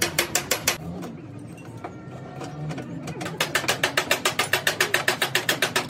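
Background music with a fast, even clicking percussion beat, which drops out about a second in and comes back strongly after about three seconds.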